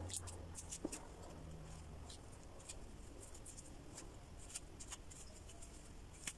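Faint, scattered light clicks and rustles of hands handling hair and a comb.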